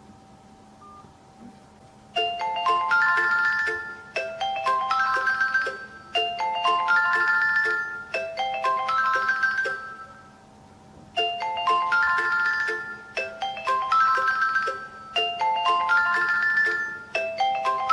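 Smartphone incoming-call ringtone playing a short rising electronic melody. It starts about two seconds in and repeats roughly every two seconds, four times, then breaks off briefly and repeats four more times.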